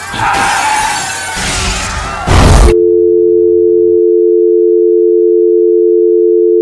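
Loud crashing commotion with wavering, sliding high-pitched cries, ending in a sharp burst a little under three seconds in; then the line drops to a steady two-tone telephone dial tone, the sign that the call has been cut off.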